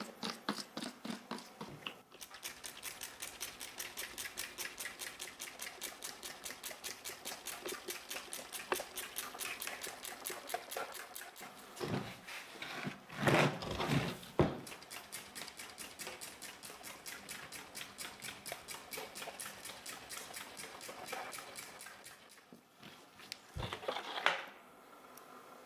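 Rapid, even scrubbing strokes on keyboard parts, about four a second, with a few louder rubs partway through and again near the end.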